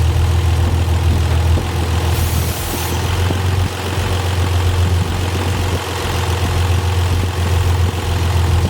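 The 1990 Nissan 300ZX's 3.0-litre twin-turbo V6 running steadily at a constant speed, with a brief high hiss about two seconds in.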